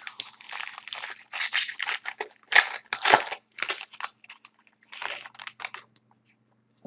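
Foil wrapper of an SP Authentic hockey-card pack crinkling and tearing as it is opened, in irregular rustling bursts with the loudest about two and a half to three seconds in.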